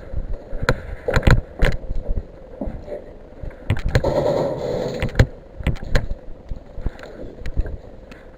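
Irregular sharp knocks and clatter from an airsoft player moving with his gear, with a stretch of rustling about four seconds in.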